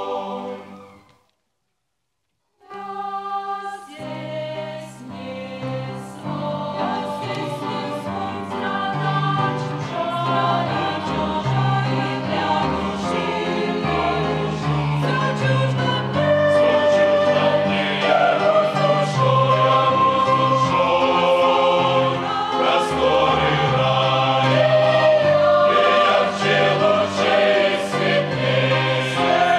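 Mixed choir singing a hymn with grand piano accompaniment. The singing dies away in the first second, and after a short silence the choir comes back in softly and grows steadily louder.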